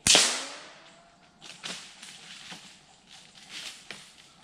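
A single loud gunshot, sharp at the start and ringing away over about a second through the woods, followed by several fainter short rustles and knocks.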